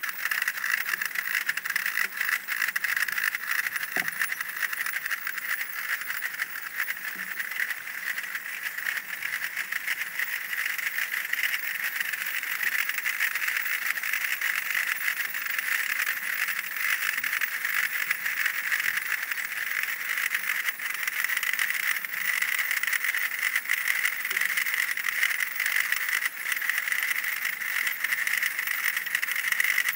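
Many Basel Fasnacht piccolos and drums playing at once, a dense mass of high piping over a continuous rattle of drumming.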